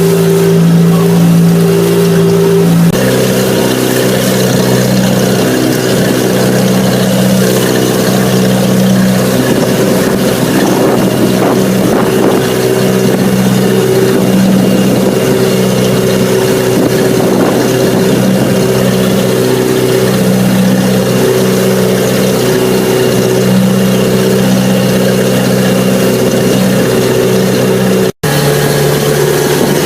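Motorboat engine running loudly at a steady pitch under a haze of wind and water noise, with a brief dropout near the end.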